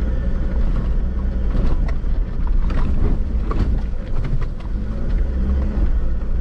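A 4x4 driving on a bush track: steady low engine and road rumble, with scattered knocks and rattles, most of them in the middle.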